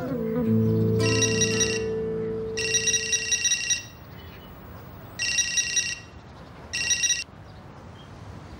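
Mobile phone ringing: a high electronic ringtone trill in short bursts, four times, cutting off near the end.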